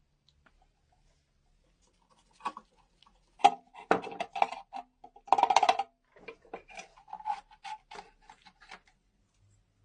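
Irregular clicks, clinks and short scrapes of small metal parts being worked, with quiet gaps between them and the busiest stretch in the middle.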